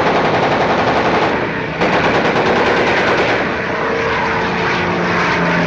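Rapid machine-gun fire from fighter aircraft guns in two long bursts, with a short break about one and a half seconds in. The firing thins out and a steady low drone comes in near the end.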